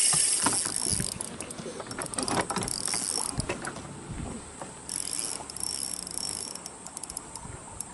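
Clicking and rattling from a spinning reel and tackle being worked against a heavy pull on the line, from a hooked fish or a snag. A high buzzing comes and goes over it.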